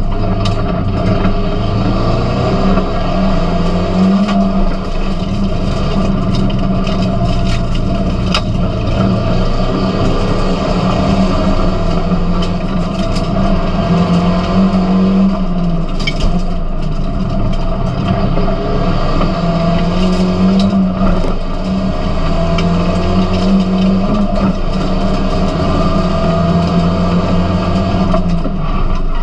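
Seat León Supercopa race car's engine heard from inside the cabin at racing pace, its revs rising and falling over and over, with a few sharp clicks.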